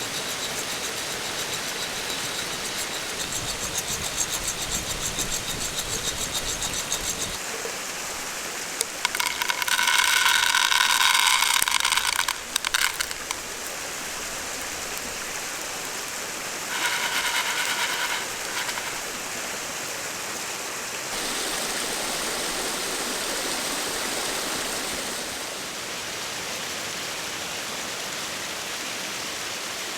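Mountain stream flowing steadily. Over it there is a fast rhythmic ticking in the first several seconds, and a louder buzzing tone twice near the middle, about three seconds long and then about two.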